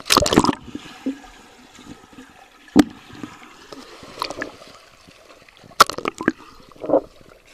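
A person jumping feet-first into a swimming pool, a loud splash at the start. Then muffled water sounds with the microphone underwater, broken by a few sharp knocks and short bursts of splashing.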